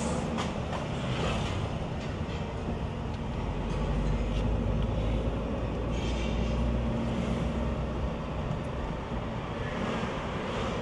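Car driving slowly in city traffic, heard from inside the cabin: a steady low rumble of engine and road noise.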